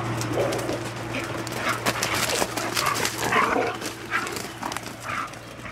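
Borzois calling during rough play: about half a dozen short, high-pitched dog calls, the densest in the middle, among scattered clicks and scuffles.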